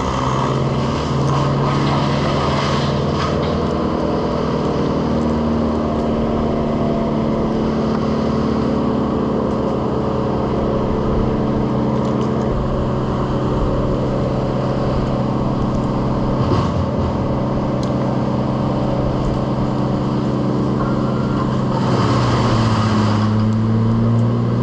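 An engine running steadily at a constant speed, its pitch shifting slightly near the end.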